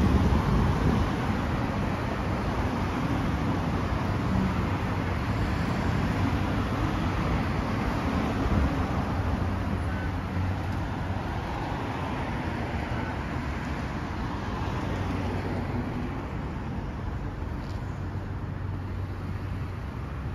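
City street traffic: cars passing on the road, a steady rumble of engines and tyres that slowly fades toward the end.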